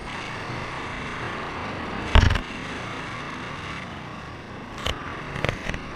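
Steady wind rushing over a helmet camera's microphone under an open parachute canopy, with a loud knock about two seconds in and a few smaller knocks near the end.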